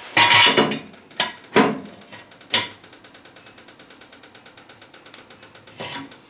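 Workshop clatter of metal being handled: a handful of sharp knocks and clanks, then a fast, even clicking of about six or seven ticks a second for about three seconds, ending in another knock.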